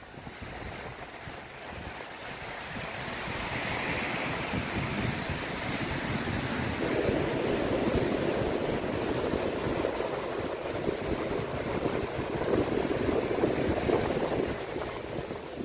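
Pacific Ocean surf washing onto the shore: a rushing that builds over the first several seconds, then runs on steadily.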